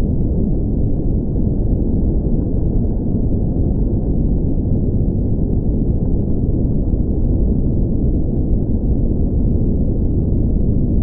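Underwater ambience sound effect: a steady, muffled low rumble of moving water, with no high sounds.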